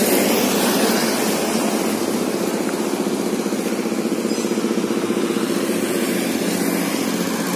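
A large bus's diesel engine idling steadily.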